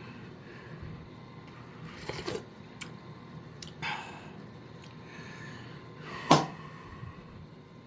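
A few scattered knocks and clicks of objects being handled, the loudest about six seconds in.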